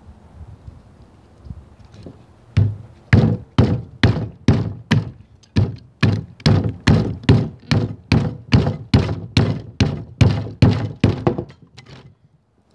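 Hickory baton beating the spine of a small folding knife (BHK Tree Frog) to drive it down through a heavy piece of wood: batoning. A run of about twenty hard wooden thunks at roughly two a second begins a few seconds in, after a few lighter taps, and stops near the end.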